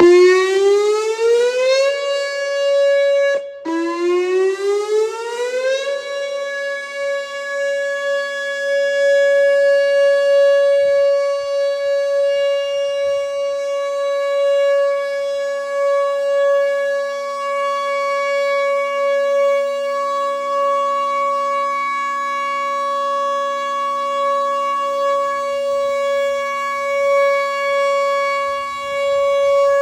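Whelen WPS 2910 electronic outdoor warning siren sounding its steady Alert tone. The pitch rises over about two seconds, cuts out briefly, rises again, and then holds one steady, buzzy tone.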